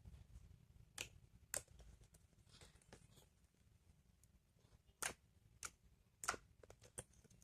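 A few faint, sharp clicks and pops at irregular intervals, about six in all, from homemade slime being squeezed and played with by hand.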